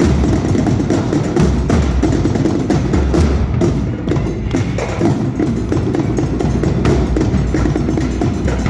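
Drum line playing a busy, steady percussion cadence: drum hits with sharp woodblock-like clicks over a heavy low bass-drum beat.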